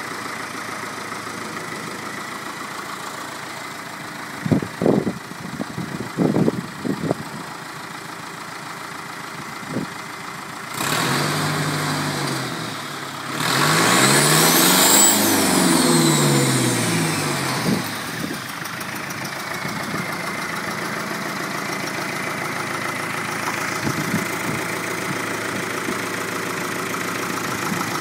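Land Rover 300Tdi four-cylinder turbo-diesel, swapped into a Massey Ferguson 35 tractor, running at idle. It picks up a little about 11 seconds in, is revved once, rising and falling back over about four seconds, then settles back to a steady idle. A few short clunks come early on.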